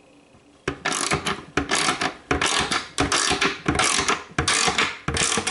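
Ratchet wrench clicking in repeated back-and-forth strokes, about one every 0.7 seconds, as it tightens a lock nut onto a bolt. It starts under a second in.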